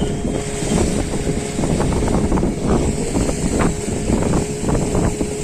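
A fishing boat's motor running steadily under way, with wind buffeting the microphone.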